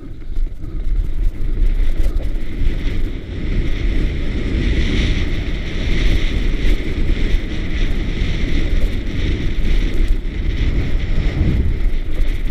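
Wind buffeting the microphone of a helmet-mounted camera on a mountain bike descending a dirt singletrack, mixed with the tyres and bike rattling over the rough ground.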